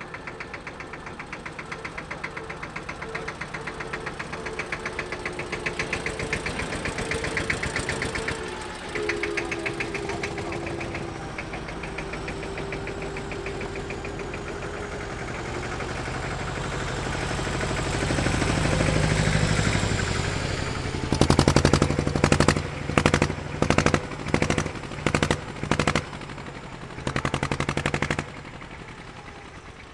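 Vintage tractor engines running as tractors drive past one after another, with a rapid knocking firing beat that grows louder as they come closer. About two-thirds of the way in, a nearby tractor's engine comes through as a run of loud, choppy bursts for several seconds, then drops away near the end.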